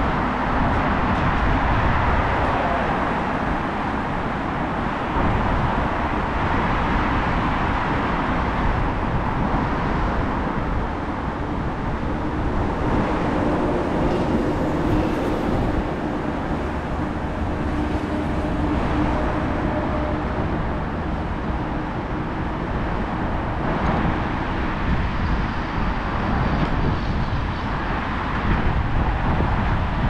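City road traffic: a steady wash of noise from passing cars with a low rumble underneath. Near the middle, an engine's hum rises and fades.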